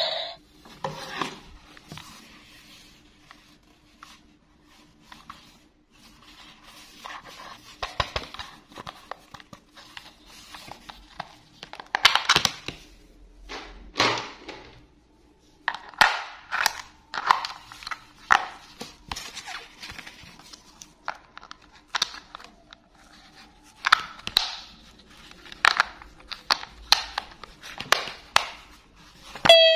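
Hard plastic of a battery-powered toy piano being handled: irregular clicks, taps and scrapes as its battery compartment and cover are worked. The toy's electronic tune starts right at the end.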